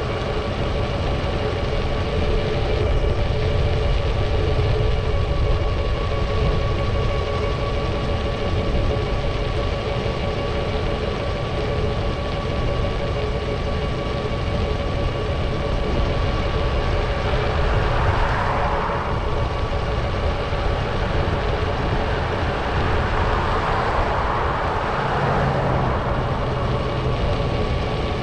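Steady wind rumble and road noise on a moving bicycle's microphone, over a constant hum of a few steady tones. Passing traffic swells twice, about two-thirds of the way in and again near the end.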